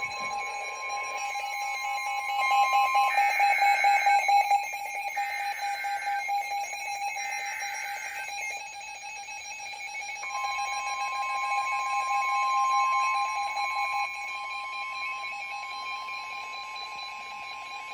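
Emergency Alert System alert tones heralding a Special Marine Warning: several short bursts of warbling SAME header data tones in the first half, over a steady, shrill two-tone attention signal.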